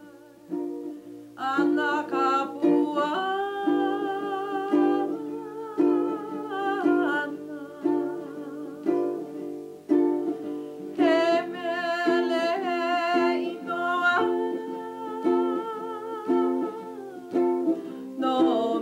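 A woman singing a Hawaiian song in long, wavering held notes over a steadily strummed ukulele; the voice comes in about a second and a half in.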